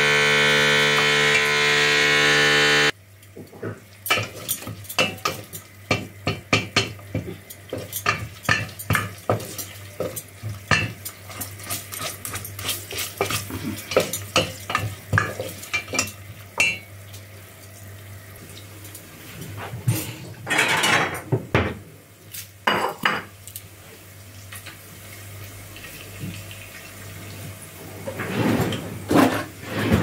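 Background music for the first few seconds, then a utensil scraping and clinking against a stainless steel pot in quick, irregular strokes as thawed ground chicken is broken up and stirred, with a few longer scrapes near the middle and the end.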